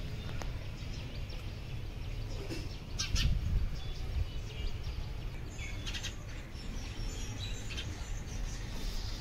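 House sparrows chirping in short, scattered calls over a steady low rumble of outdoor background noise.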